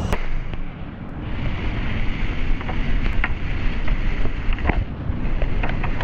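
Rushing whitewater with wind buffeting the microphone, and a few sharp clicks through the rush.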